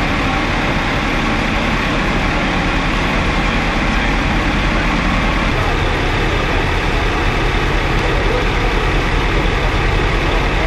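Heavy diesel engine idling steadily, as of a fire engine standing at the scene, with a slight change in tone about halfway through.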